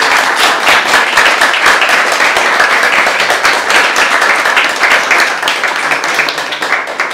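Audience applauding: a dense, steady clatter of many hands clapping, starting to die away near the end.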